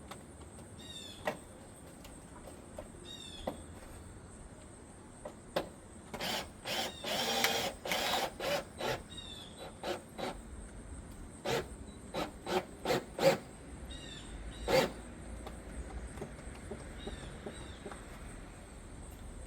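Power drill driving a gutter screw into the fascia: a string of short trigger bursts, with one longer run of about two seconds near the middle. Small birds chirp in the background.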